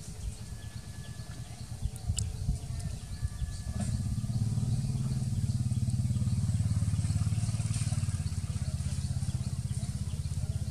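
A motor vehicle's engine running, a low rumble that grows louder about four seconds in and holds until near the end.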